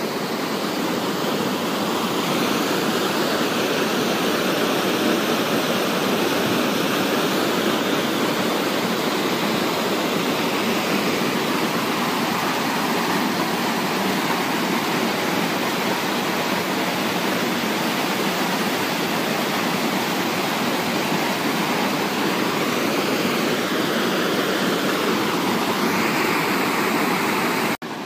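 Mountain waterfall falling and splashing onto the rocks and pool at its foot, heard close up as a steady, loud rush of water. The level drops suddenly just before the end, when the water sounds farther off.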